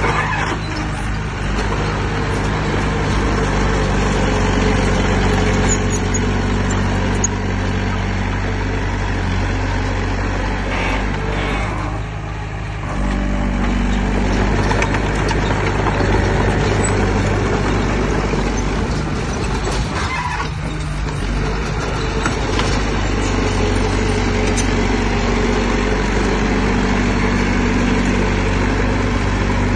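Heavy diesel engine of earthmoving equipment running steadily, easing off briefly about twelve seconds in and then picking up again.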